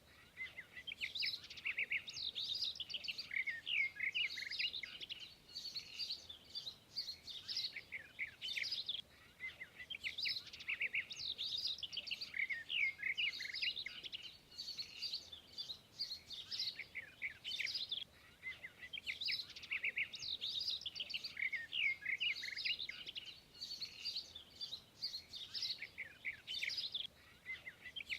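Songbirds chirping and singing continuously in quick, high twittering phrases a few seconds long.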